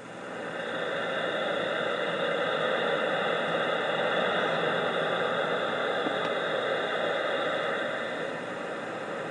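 CB radio receiver static: a steady band-limited hiss from the radio's speaker on an open channel between transmissions, swelling in over the first second after the operator unkeys and easing slightly near the end.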